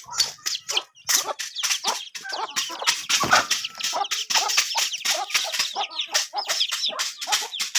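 A flock of chickens clucking, with many short, sharp calls and noises coming fast and overlapping.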